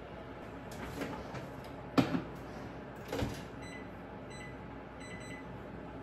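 Microwave oven door shutting with a thunk about two seconds in, among a few lighter knocks, then three short beeps from its keypad as it is set to heat.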